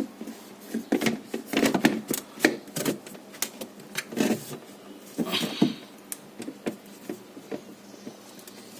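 Irregular clicks and knocks of parts being handled and fitted by hand, with a short scraping rub about five seconds in.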